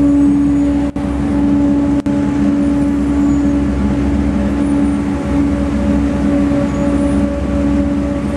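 Steady mechanical hum over a low rumble, cutting out for an instant twice, about one and two seconds in.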